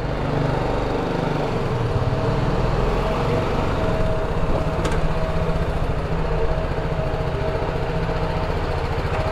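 BMW G310GS motorcycle's single-cylinder engine running at low speed, with a steady whine above the engine note.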